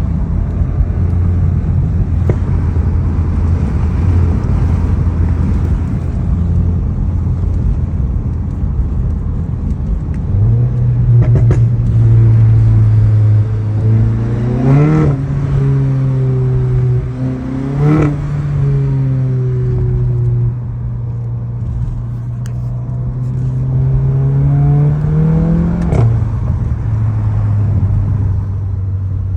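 APR Stage 2 tuned 2015 Volkswagen Golf GTI's turbocharged 2.0-litre four-cylinder engine running steadily, then pulling under acceleration several times. Each time its pitch climbs, then drops abruptly with a short sharp crack.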